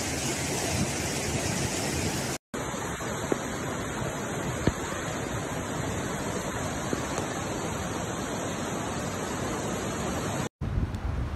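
Fast-flowing flash floodwater rushing in a steady, even wash. The sound drops out for an instant twice.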